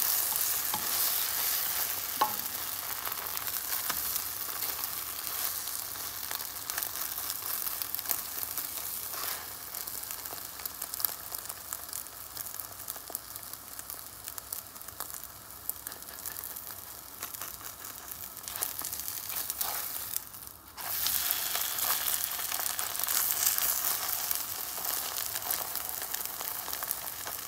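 Eggs with chopped spring onions sizzling and crackling in a little olive oil in a nonstick frying pan, with a plastic spatula stirring and scraping at times. The sizzle drops away for a moment about three-quarters of the way through, then comes back louder.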